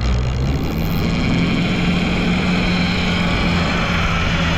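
Boat engine running steadily, a constant low hum under a steady rushing hiss.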